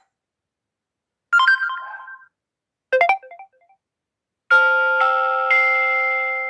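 Samsung Galaxy A32 4G stock notification tones played one after another: two short chimes about a second and a half apart, then a longer ringing chime of three notes entering half a second apart, the last one higher.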